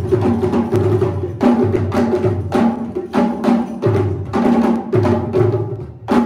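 Live traditional Ivorian drumming: two drummers playing a fast, repeating rhythm of sharp hand strokes and deep bass tones on tall standing drums.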